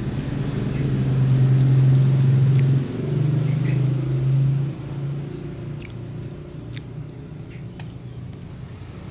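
A nearby engine running with a steady low hum, loudest in the first half and dropping away about five seconds in. Faint crisp clicks of cats crunching dry kibble run underneath.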